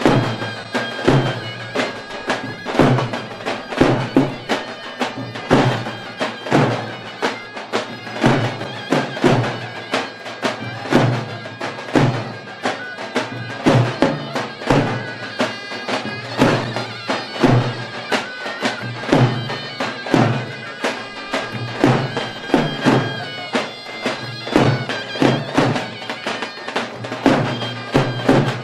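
Davul and zurna playing a folk dance tune: two zurnas carry a loud, nasal reed melody over regular beats of the big double-headed davul drum.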